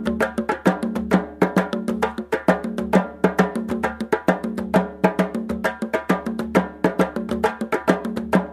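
Background music with fast, steady percussive notes, like wood block or mallet percussion, over a bass line.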